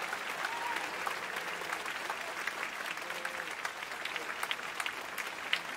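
Audience applauding: many hands clapping in a steady patter, with a few sharper claps near the end.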